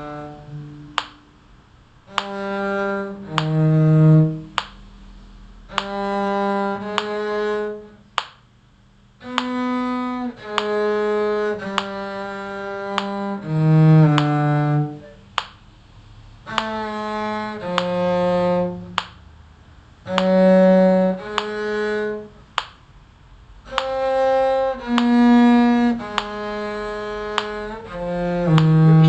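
A bowed string instrument played con sordino, with a mute on the bridge, in a slow minor-key melody: sustained low notes in short phrases of two to four notes, each phrase followed by a brief rest.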